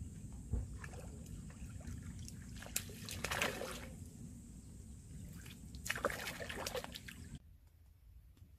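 A hooked fish thrashing at the water's surface near the float line, splashing in two bursts about three and six seconds in, over a low steady rumble. The sound goes much quieter near the end.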